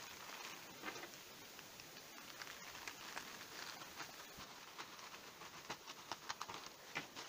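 Clear plastic wrapping crinkling and rustling as hands pull it open, a string of faint irregular crackles that thicken toward the end.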